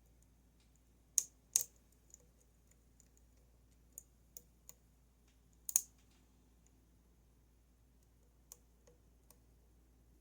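Sharp metallic clicks of a lock pick working the pins inside a Goal Z Japanese pin-tumbler lock's keyway, about eight irregular clicks with the loudest three in the first half, while the picker tests pin 1 to set it.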